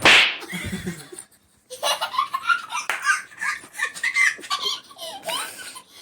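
A baby laughing: a loud breathy burst right at the start, then a quick run of short giggles from about two seconds in.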